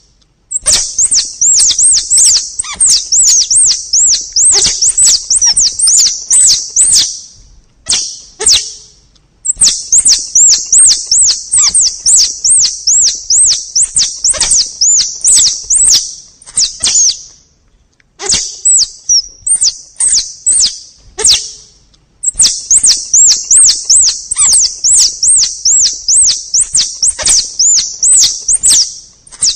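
Forest squirrel (tupai) call played as a hunting lure: fast runs of high chirps, about five a second, each with a sharp click. The runs last several seconds and are broken by short pauses.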